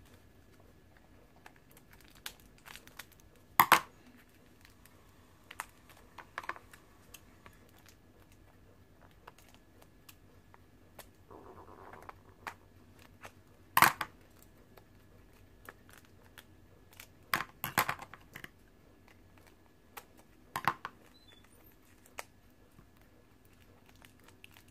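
Scissors snipping and plastic shrink wrap crinkling as the wrap is cut and peeled off a small plastic jar. Sharp, scattered clicks come a few seconds apart, with a short soft rustle near the middle.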